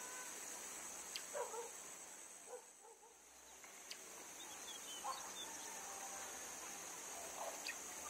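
Steady, faint, high-pitched drone of insects, with a few short calls breaking in about one and a half, five and seven and a half seconds in.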